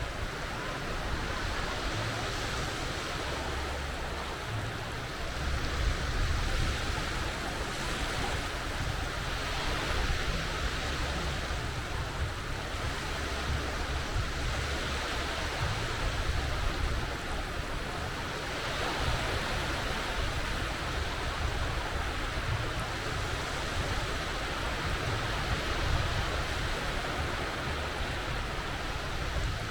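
Sea waves breaking and washing onto the shore, the surf swelling every few seconds over a continuous hiss, with a low rumble underneath.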